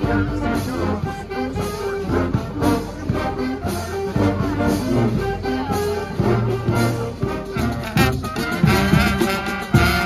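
Live street brass band playing: horns and sousaphones over marching drums. About eight seconds in, the music switches abruptly to a different brass band's tune.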